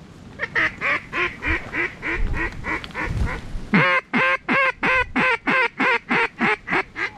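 A hand-blown duck call sounding a long string of quacks, about four a second, to draw in gadwall passing overhead. The notes are softer at first and louder from about halfway. Wind rumbles on the microphone in between.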